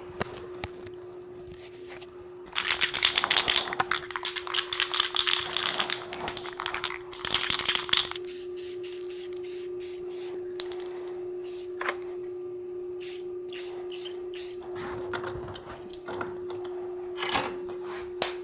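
Aerosol spray paint can hissing in two long sprays, followed by scattered sharp clicks and taps of plastic parts being handled, over a steady low hum.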